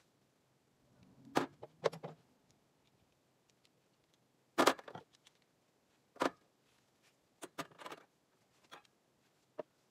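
Steel sockets clinking and clacking against a metal tool box and socket rails as they are set down and fitted onto the rails: a string of irregular sharp metallic knocks, the loudest a little under halfway through.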